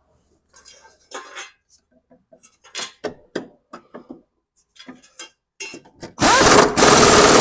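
Scattered light clinks and taps of metal parts, then about six seconds in a power tool runs loud for just over a second, tightening a riding-mower blade bolt onto its spindle.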